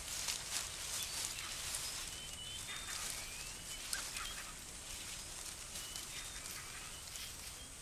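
Quiet forest ambience: a steady hiss with scattered short, high bird chirps and a few faint clicks and rustles.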